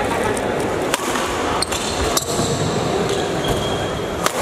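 Badminton rackets striking a shuttlecock during a rally: sharp hits about a second in, twice more within the next second or so, and again near the end, over steady background noise.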